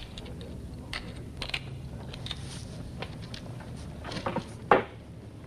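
Low steady room hum with scattered light clicks and rustles of people shifting in wooden chairs, and one sharp knock near the end.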